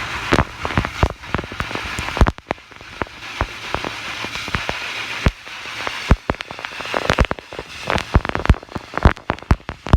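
Water splashing and dripping in a koi-pond rotary drum filter just after its screen-cleaning cycle, as many irregular sharp splats over a low water hiss.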